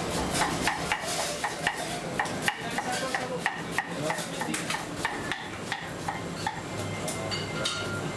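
Busy restaurant kitchen: frequent irregular clinks and knocks of utensils against bowls and pans, with a few short ringing tones near the end, over a steady low hum.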